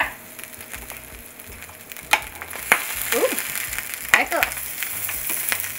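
Sausages frying in a grill pan with a steady sizzle, the water they were boiled in now cooked off. A few sharp clicks of metal tongs against the pan come through as the sausages are turned.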